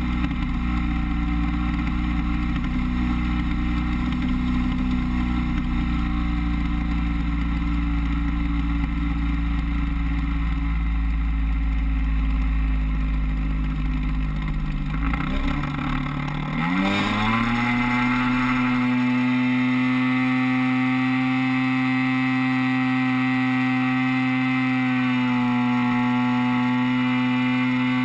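A model plane's DLE 30 single-cylinder two-stroke gasoline engine running steadily over a low rushing noise. About halfway through it drops briefly, then revs up sharply and holds a steady higher pitch: the throttle going up for a takeoff from the water during a touch-and-go.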